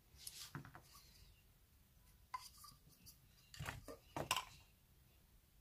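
Faint clicks and light taps of the metal parts of a mechanical vape mod tube, a Coilart Mage Mech V2, being handled and taken apart. There are a handful of short knocks, a few in the first second and then single ones at about two and a half, three and a half and four and a half seconds in.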